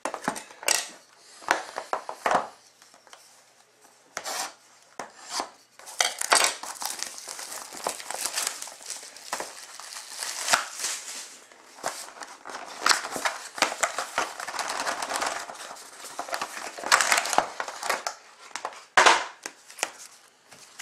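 Cardboard hockey card boxes being opened and handled: scrapes and taps at first, then a long stretch of crinkling and rustling packaging, and a sharp knock near the end.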